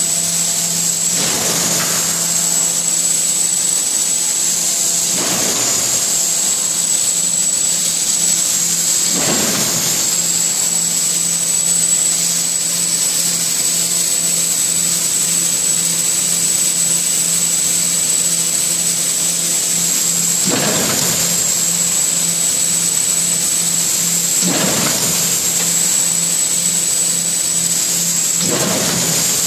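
Theisen & Bonitz Sprint collating machine running: a loud, steady mechanical hum with a high-pitched whine over it. Several brief whooshes come and go every few seconds.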